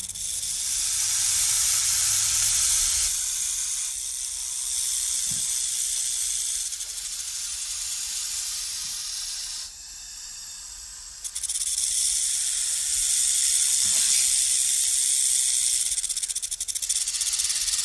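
Snake hissing: a run of long, breathy hisses a few seconds each, with a short pause about ten seconds in.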